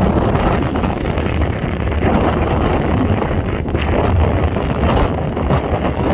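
Passenger ferry under way: a steady low rumble of engine and water, with wind buffeting the microphone.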